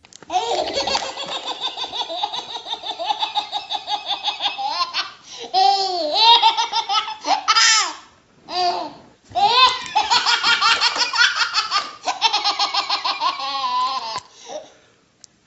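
A baby belly-laughing in long, rapid fits of about five bursts a second, with shorter squealing laughs and brief breaks around the middle.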